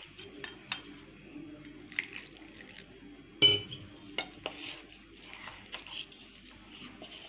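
Metal spoon stirring and scraping flour batter in a stainless steel bowl, with scattered clinks of the spoon against the bowl and one louder clatter about three and a half seconds in.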